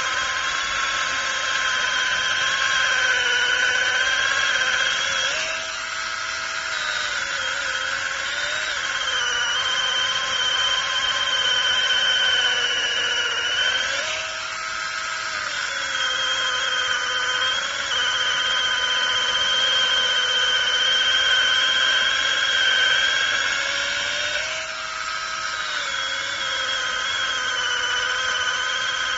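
Brushless 21 V battery mini chainsaw running with a steady high-pitched whine while cutting, its pitch and loudness briefly shifting three times.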